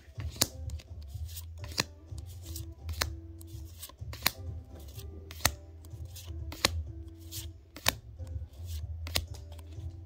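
Background music with a steady bass line and a sharp clap-like beat about every 1.2 seconds.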